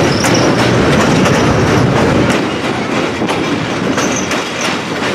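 Passenger railroad car rolling across a steel truss bridge: wheels clacking over the rail joints above a steady rumble, which eases slightly about two seconds in.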